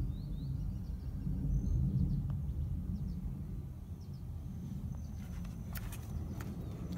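Outdoor ambience: a steady low rumble with faint bird chirps in the first couple of seconds, then a few sharp clicks near the end.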